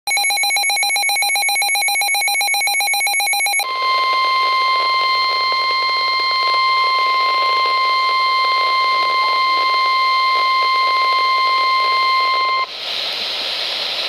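Midland NOAA weather radio sounding a tornado warning alert: a rapidly pulsing electronic beep for about three and a half seconds, then the steady 1050 Hz NWS warning alarm tone for about nine seconds, which cuts off into radio hiss near the end.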